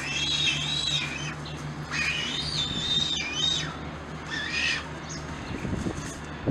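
Cinereous vulture calling during copulation: three high-pitched wavering calls, the last one short.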